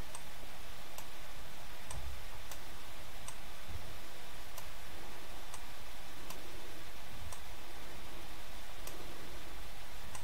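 Computer mouse clicking at irregular intervals, roughly once a second, over a steady hiss.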